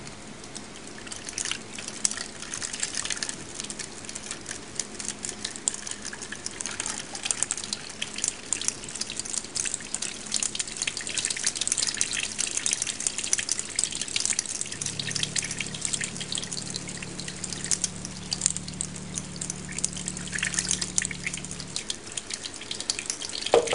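Water pouring in a thin stream onto a perforated DELTA-MS 20 dimpled drainage mat in a test tray, splashing and draining through the perforations into a tank below. A steady low hum joins in for several seconds past the middle.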